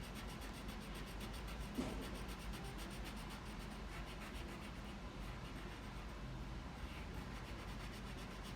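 Wax crayon being rubbed back and forth on paper, faintly, as a shape is coloured in.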